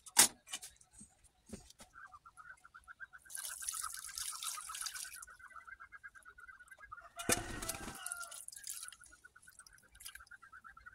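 Coconut milk squeezed by hand from grated coconut through a wire-mesh strainer, splashing and trickling into a cooking pot in two spells, about three seconds in and again about seven seconds in. Behind it runs a steady, fast-pulsing trill.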